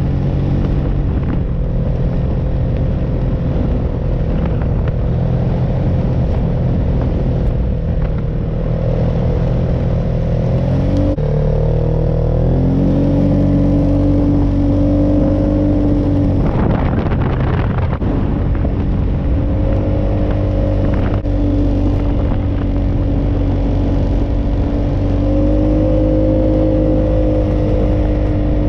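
An engine running steadily. About eleven seconds in its pitch dips and then settles at a new steady note.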